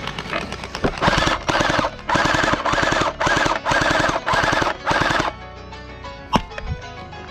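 Gel blaster firing in about nine short full-auto bursts, one after another, from about a second in until about five seconds in, over background music.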